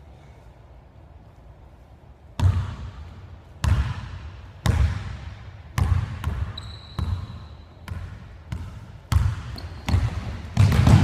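Basketball dribbled on a hardwood gym floor: sharp bounces about once a second starting a couple of seconds in, coming quicker near the end, each ringing out in the big hall. A short high sneaker squeak cuts in around the middle.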